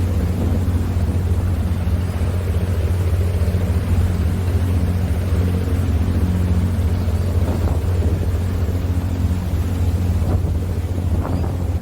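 Steady low drone of a running vehicle's engine, even and unbroken, with some wind noise over it.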